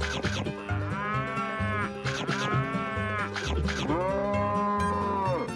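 Cow mooing: about three long moos, each rising and then falling in pitch, over background music with a steady bass line.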